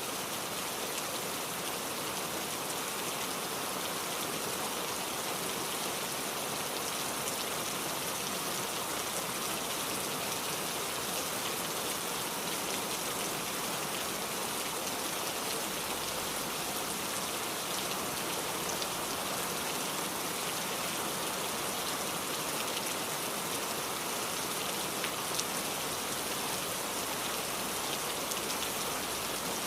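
Heavy rain falling steadily, a dense even hiss with fine ticks of drops striking a surface.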